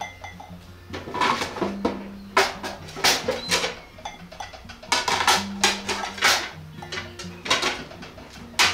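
Plates clattering and clinking as they are handled and set into a wire dish rack, with irregular sharp knocks, over background music with a repeating bass line.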